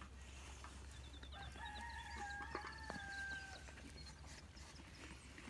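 A rooster crowing once, faint, a single held call of about two seconds.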